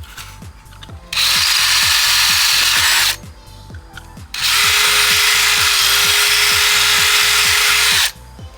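Power drill boring through a thin steel fog light bracket in two bursts, about 2 s and then about 3.5 s long, the second with a steady motor whine. The drill bits are dull.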